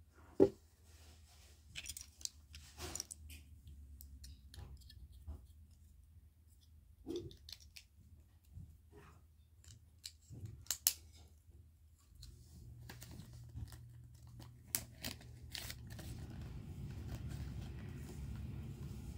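LEGO plastic bricks being handled and pressed together: scattered sharp clicks and clatters, the loudest about half a second in and a quick pair near eleven seconds, with a low rustling noise building over the last few seconds.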